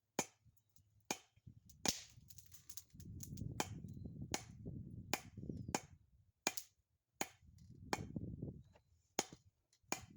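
Japanese box bellows (fuigo) pumped by hand to blow a charcoal forge: a sharp clack about every three-quarters of a second as the stroke reverses and the flap valves shut, with a low rush of air and fire in between.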